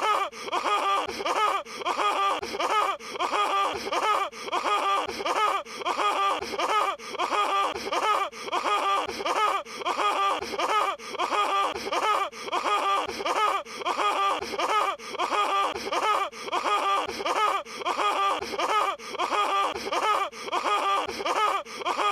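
Patrick Star's cartoon laugh sound effect, a short voiced laugh played on a loop, repeating identically a little more than once a second.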